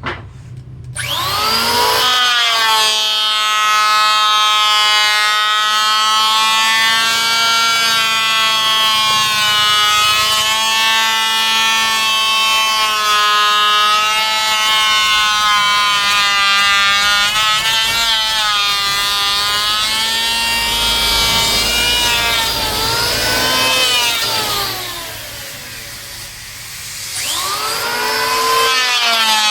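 Electric woodworking power tool, likely a saw, winding up about a second in and running at speed with a high motor whine whose pitch wavers slightly. It winds down about 23 seconds in, then starts up again near the end.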